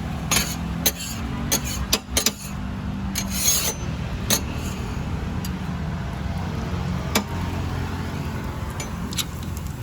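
Cooking utensils clicking and scraping at a frying stall: scattered sharp clicks, with a longer rasping scrape about three and a half seconds in, over a steady low rumble.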